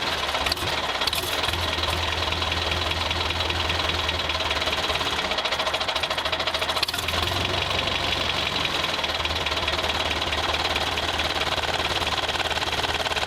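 A small tractor's engine running steadily, with a fast, even beat and no change in speed.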